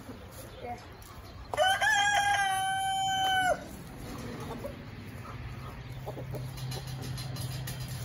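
Rooster crowing once: a single long, held call lasting about two seconds, starting about a second and a half in and ending abruptly.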